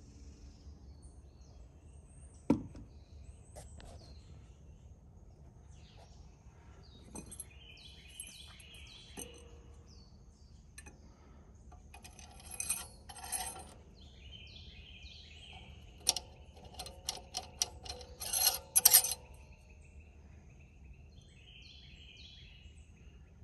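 Hand tools clinking and clicking on metal while a generator is taken apart: a single knock early on, then scattered clinks and quick runs of clicks, loudest near the end. Small birds chirp repeatedly in the background.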